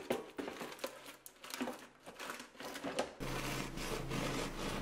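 Aluminium foil crinkling and rustling as hands press and fold it over a cake in an air fryer basket, in irregular crackles. About three seconds in, this gives way to a steady low hum.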